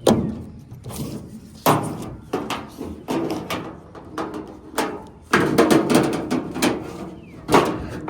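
Metal clanks, knocks and rattles as a tie-down strap is pulled off an old Chevrolet Chevelle and its steel hood is opened. Sharp impacts come at the very start, just under two seconds in, in a cluster a little past halfway, and again near the end.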